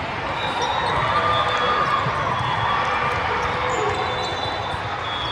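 Steady din of a crowded volleyball tournament gym: many voices talking and calling at once, with balls being hit and bouncing.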